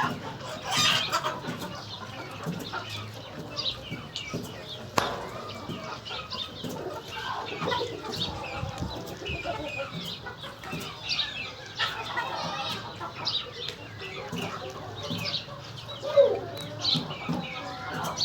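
Aseel chickens clucking and calling, with many short high-pitched calls scattered throughout and one louder call near the end.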